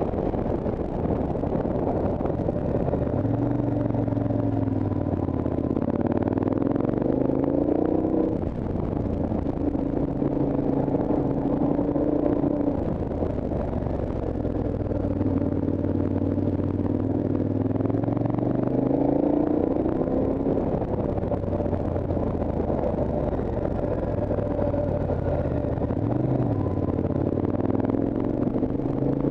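Motorcycle engine pulling uphill, its pitch rising and falling with the throttle and gear changes. There is a sharp drop about eight seconds in, and the engine climbs again several times after it.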